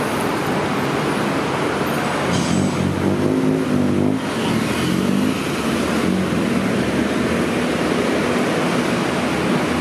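Busy city road traffic: a steady rush of passing cars, with vehicle engines rising and falling in pitch as they drive by, loudest about three to four seconds in.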